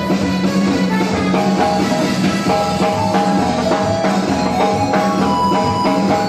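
Live band dance music: an electronic keyboard playing sustained notes over a steady drum beat.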